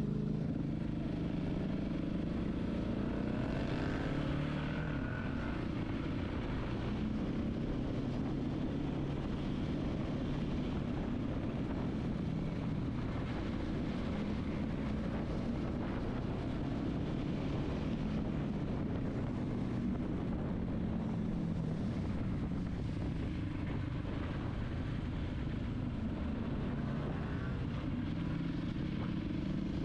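Motorcycle engine running steadily with an even, unchanging pitch, low in the mix.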